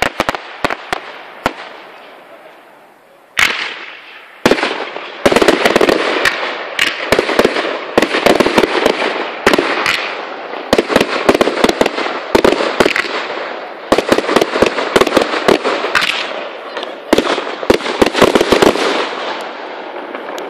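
Fireworks display: a few sharp aerial shell bursts, a short lull, then from about four seconds in a dense barrage of rapid bangs and crackling that thins out near the end.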